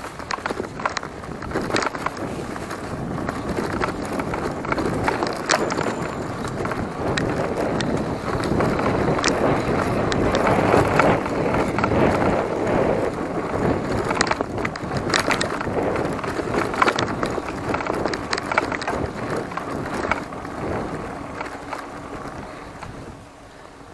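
Giant Talon 3 hardtail mountain bike being ridden over a rough trail: steady tyre noise with many sharp rattles and knocks, and wind buffeting the microphone.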